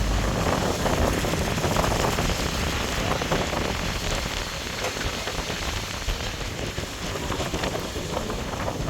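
Steady hiss of falling or splashing water with many small crackles, easing off a little toward the end.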